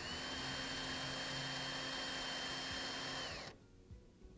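Cordless drill running at speed, countersinking a screw hole in the window frame for a flathead screw. A steady high whine that climbs as the drill spins up, holds, then falls away and stops about three and a half seconds in.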